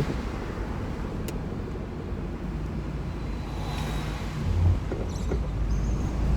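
Inside a moving 2002 Subaru WRX: the turbocharged flat-four engine running steadily under road and tyre noise, with a low thump about four and a half seconds in.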